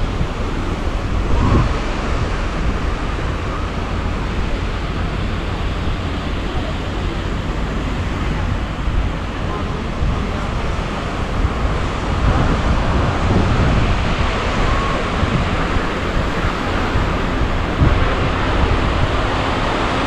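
Beach ambience: wind buffeting the microphone over the steady wash of small waves on the shore.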